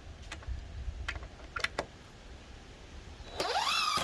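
A few light knocks and clicks, then a power tool's motor spins up with a rising whine about three and a half seconds in and runs on steadily.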